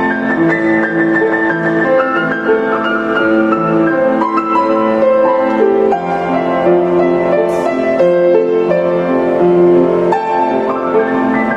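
Piano music: a slow melody over sustained chords, played at a steady level.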